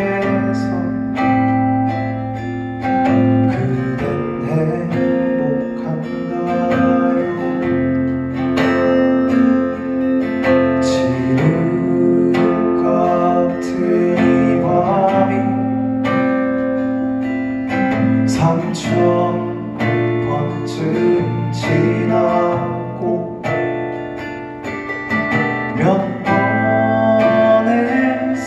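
Acoustic guitar strummed as accompaniment to male voices singing a song, performed live through microphones.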